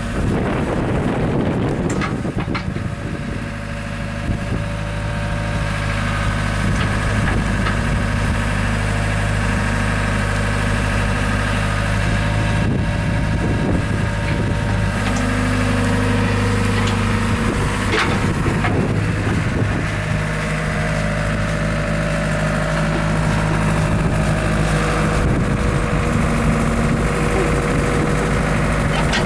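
Compact tracked excavator's diesel engine running steadily, its tone shifting a few times as the machine works and moves. A couple of sharp knocks stand out along the way.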